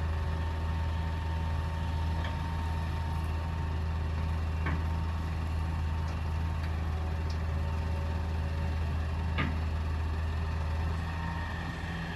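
Diesel engine of a Hitachi EX200 excavator running steadily, with a few sharp knocks over it, and the engine easing off slightly near the end.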